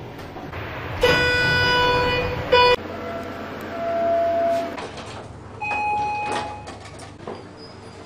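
Otis elevator car signals. A loud steady tone sounds about a second in and holds for nearly two seconds, with a short second burst at its end. Two single chime tones of different pitch follow, the second a few seconds later, among clicks and sliding-door noise.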